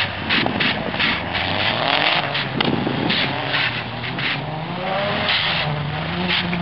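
Car engines revving up and down as they slide through snow, the pitch rising and falling, with short pulses of hiss about three times a second.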